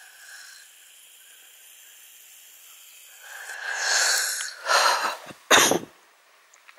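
A person sneezing: two breathy build-up sounds, then one sharp, sudden burst about a second and a half before the end. Before it there is only faint room tone.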